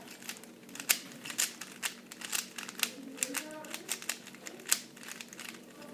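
Dayan Zhanchi 3x3 speed cube being scrambled: its plastic layers turning in quick, irregular clicks and clacks.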